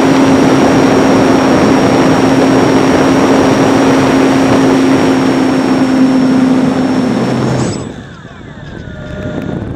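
Wind rushing over the microphone of a camera mounted on the wing of a ParkZone T-28 RC plane, with the steady whine of the plane's electric motor and propeller at high throttle. About three-quarters of the way through the whine stops and the noise drops sharply as the throttle is pulled back, then it slowly builds again.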